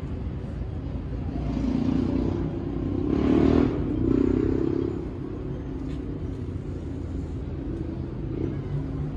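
Tabby cat purring steadily as it is stroked: a low, rapidly pulsing rumble. Between about two and five seconds in, a louder swell rises and fades over it.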